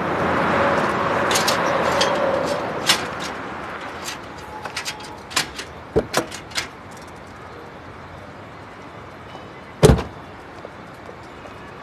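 Clicks, knocks and rattles of a bicycle being handled at a car's open rear cargo area, then one heavy thud of a car door shutting near the end.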